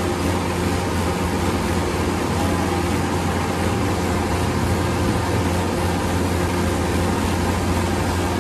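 Tractor's diesel engine running steadily under way, a constant low drone with no change in pitch or loudness.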